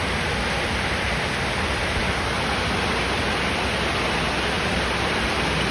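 Heavy rain pouring down: a loud, steady hiss that does not let up.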